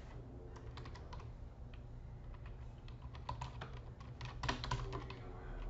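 Typing on a computer keyboard: irregular quick key clicks as a web search is typed, coming most densely in the second half.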